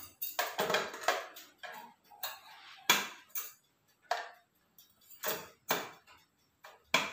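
Metal beaters clicking and rattling as they are fitted into a handheld electric mixer, a series of separate sharp clicks and short clatters, the sharpest about three seconds in and again near the end.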